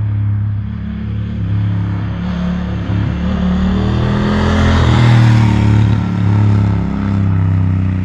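Honda Africa Twin's parallel-twin motorcycle engine running steadily, with a swell of rushing noise that builds to a peak about five seconds in and then eases off.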